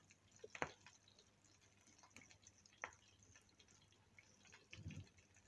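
Faint crackle of hot oil around potato cutlets shallow-frying in a pan, scattered small ticks with two sharper pops, about half a second and just under three seconds in.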